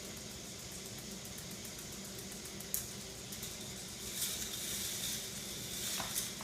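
K'NEX motor running steadily with fast, even ticking. There is a sharp click a little under three seconds in and a rattling, clattering stretch from about four to six seconds in.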